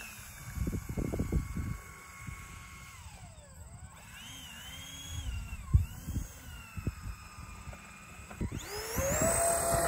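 Twin electric ducted fans on an RC flying wing whining, their pitch rising and falling as the throttle is worked while the model taxis. About eight and a half seconds in they spool up steeply to a steady high whine at full power. Wind buffets the microphone in low thumps.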